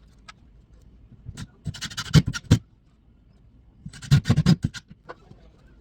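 Two short bursts of scraping and knocking, the first about two seconds in and the second about four seconds in.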